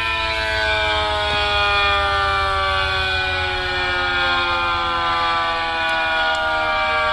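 Several simulated outdoor warning sirens, including a Thunderbolt 1000T, sounding together loudly from siren apps and speakers, their overlapping tones slowly falling in pitch.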